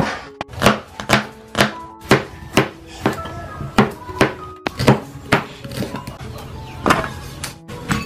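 Broad-bladed kitchen knife chopping ginger and garlic on a plastic cutting board, with sharp knocks about twice a second. Background music with sustained notes plays underneath.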